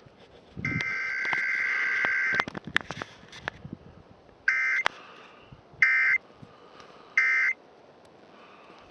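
Electronic buzzer sounding: one long buzz of nearly two seconds, then three short beeps about 1.3 seconds apart, with sharp clicks in between.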